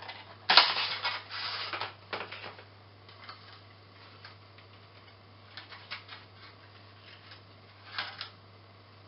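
A clear plastic packaging tray and cardboard box being handled, making rustling and clicking, loudest in the first two seconds and again briefly near the end, with scattered small clicks in between. A low steady hum runs underneath.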